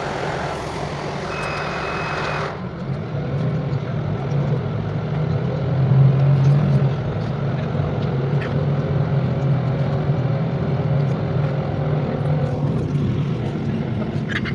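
Steady low drone of a passenger vehicle in motion, heard from inside the cabin. In the first couple of seconds a hiss with a short high beep plays over it, and both cut off sharply.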